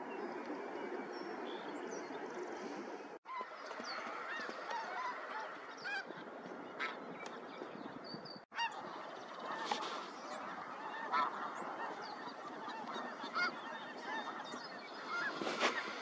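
A large flock of geese calling, many short honks overlapping into a steady chorus, with two brief breaks.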